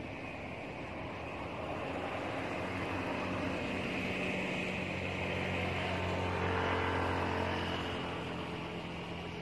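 Steady engine drone of a passing vehicle, growing louder to a peak about two-thirds of the way through and then fading.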